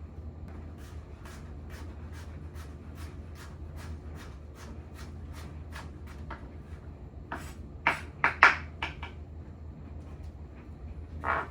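Knife chopping on a cutting board in a steady rhythm of about three cuts a second, then a few louder knocks about eight seconds in, with a low hum underneath.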